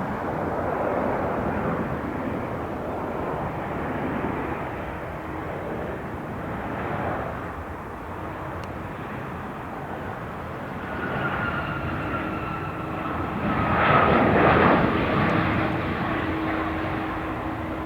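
Jet airliner passing close by: a steady engine rush with a faint whine, swelling to its loudest about three-quarters of the way through and then easing.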